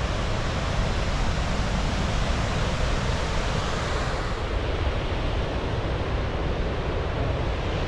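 Wapta Falls thundering as a steady, loud rush of falling water, heard close to the base of the falls. Some wind buffeting on the microphone may be mixed in.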